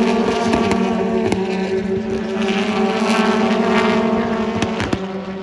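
BTCC touring car engines running, a steady droning note with sharp cracks scattered through it, fading away near the end.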